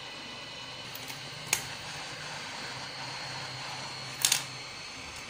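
Hot air rework gun blowing with a steady hiss and a faint whine while it heats the solder joints, broken by a sharp click about a second and a half in and a quick double click near the end.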